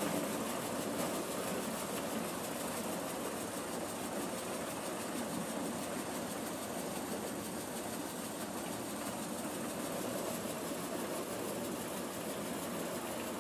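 Farm machine's engine running steadily: an even mechanical drone that does not rise or fall.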